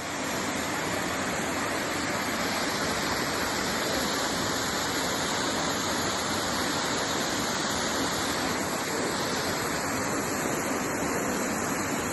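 Waterfall rushing: a steady, dense noise of falling water with no breaks.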